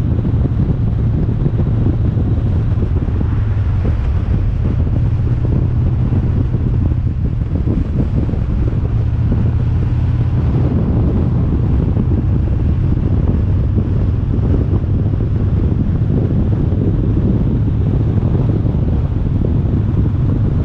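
Steady drone of a vehicle on the move: a constant low engine and road hum with rushing wind and tyre noise, unchanging throughout.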